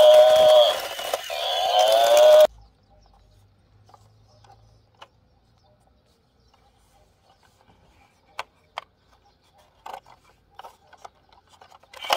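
Electric toy buffalo's built-in sound playing a recorded bellowing moo, cutting off suddenly about two and a half seconds in. After it comes near quiet with a scattered few faint clicks from the plastic toy being handled.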